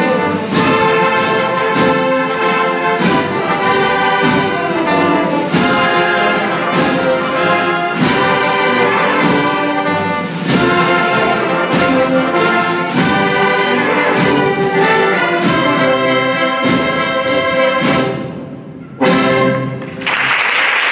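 Symphonic wind band playing the closing bars of a Spanish Holy Week procession march, with trumpets and trombones leading over a steady drum beat. It ends with a last accented chord that dies away, and applause breaks out just before the end.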